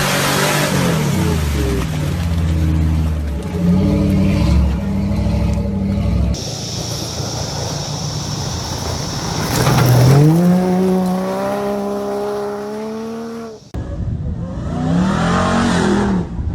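Off-road 4x4 engines revving hard, the pitch climbing and dropping with the throttle, across short clips cut together. The sound changes abruptly about six seconds in and again near the end.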